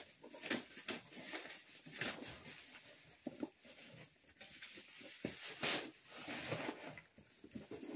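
Plastic bubble wrap crinkling and rustling as it is handled and peeled off a box, with irregular crackles throughout, the loudest a little past the middle.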